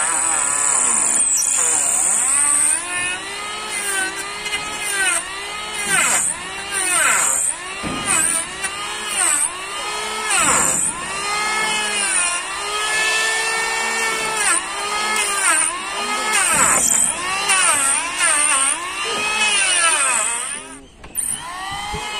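Electric hand planer running as it shaves a wooden beam, its whine repeatedly dropping and rising in pitch as the blades bite into the wood and free up again. It briefly cuts out near the end.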